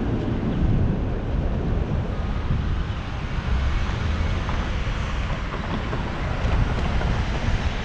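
Wind buffeting the microphone of a bike-mounted action camera while riding: a steady, gusty low rumble, with road traffic underneath.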